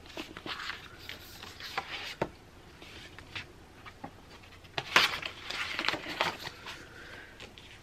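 Paper rustling and light clicks from handling a hardcover book: its dust jacket being folded back and its pages leafed through, with a few sharper clicks, the loudest about five seconds in.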